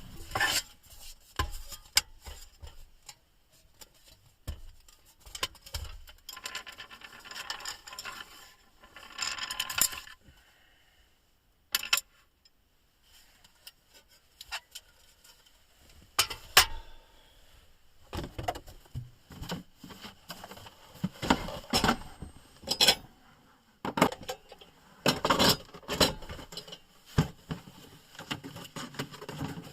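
Camp cookware and utensils being handled: scattered clinks, knocks and scrapes of pots and cutlery, coming in bursts with short quiet pauses between.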